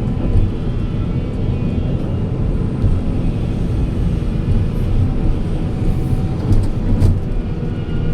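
Heavy diesel machinery running steadily with a deep rumble, and a single sharp knock about seven seconds in.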